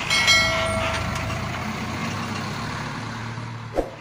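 Truck diesel engine idling with a steady low rumble. Near the start comes a sudden loud burst with a whistling tone that fades over about a second, and there is a short click near the end.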